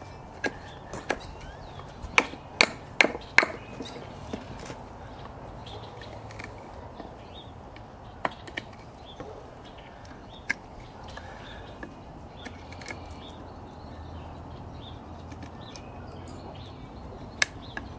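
Sharp wooden knocks of a Mora Companion Heavy Duty knife chopping into a stick, used like an axe. A quick run of strikes in the first few seconds gives way to scattered single knocks, and a new run of quick strikes starts near the end.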